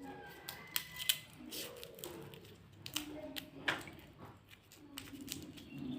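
Irregular sharp clicks and taps of kitchen food preparation, a handful spread across a few seconds, with a voice talking quietly underneath.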